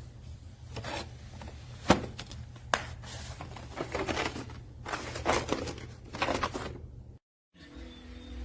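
Handling noise: irregular rubbing and scraping, with two sharp clicks about two and three seconds in, over a low steady hum; the sound drops out briefly near the end.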